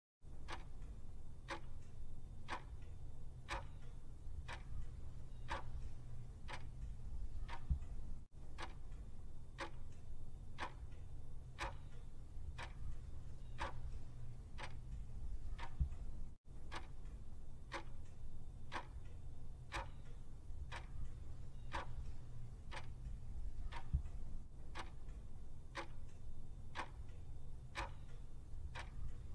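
Clock-ticking countdown timer sound, one tick about every second, over a steady low hum.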